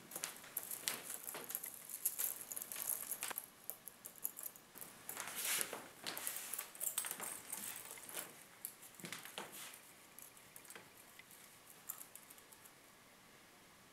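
Handfuls of small wooden sticks dropped and scattered onto a wooden tabletop, making a dense, irregular pattering and clicking. After about ten seconds this thins out to a few scattered ticks.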